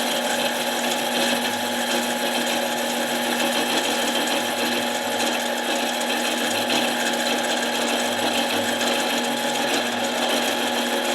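Harbor Freight mini lathe running steadily with a motor hum, as a cutting tool scrapes along a metal part from an impact wrench being turned true.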